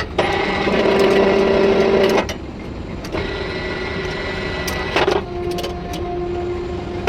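A steel-working machine's motor running with a steady whine, broken about two seconds in and again about five seconds in by sharp metallic knocks, after which the running tone shifts in pitch.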